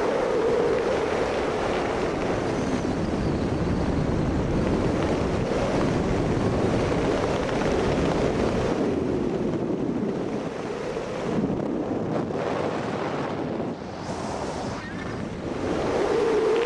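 Wind rushing over the microphone during a tandem skydive descent: a dense, steady rush with a wavering howl in it. It eases off for a few seconds past the middle and rises again near the end.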